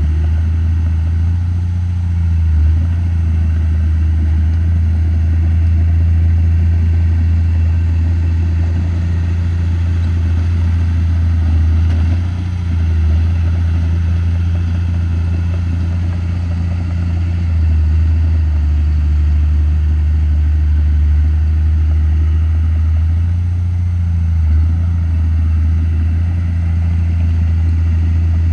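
Komatsu D31P bulldozer's diesel engine running steadily at work, a strong low drone whose pitch shifts briefly a few times.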